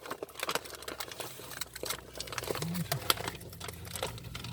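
Several people crunching and chewing Dorset knobs, hard dry rusk-like bread rolls: a string of crisp cracks and crunches, with a short hum about two and a half seconds in.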